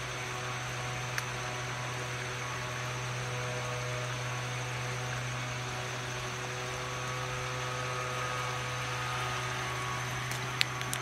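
Steady rush of creek water running over a low concrete ford, with a constant low hum underneath. A sharp click near the end.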